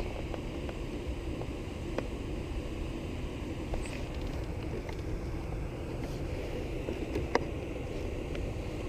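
Steady low rumble of wind on the microphone over open water, with a couple of faint ticks about two seconds in and near the end.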